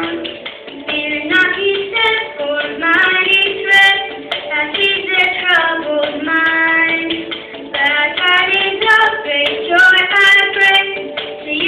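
A child singing a solo song, one melody line in sung phrases, with music behind.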